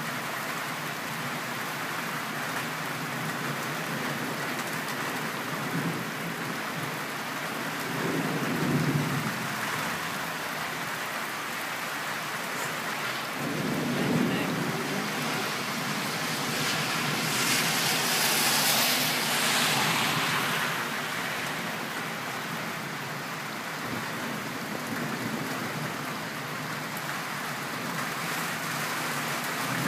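Steady rain during a thunderstorm, with low rolls of thunder about a third of the way in and again a few seconds later; past the middle the rain's hiss swells louder for a few seconds.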